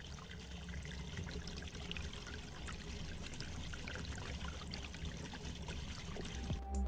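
Liquid poured through a glass funnel into a glass burette, trickling steadily and softly.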